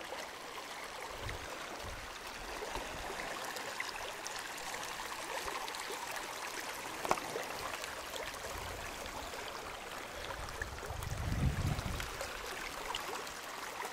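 Small mountain stream running steadily over rocks. A brief low rumble near the end.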